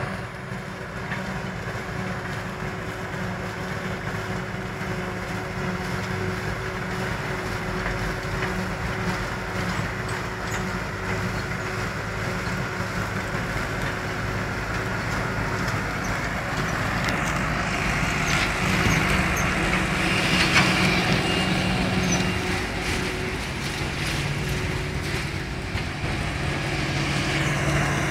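Claas Jaguar 840 forage harvester running steadily as it chops maize and blows it into a trailer, together with the engine of the Same Silver 100.4 tractor pulling the trailer alongside. The noise grows louder about two-thirds of the way through.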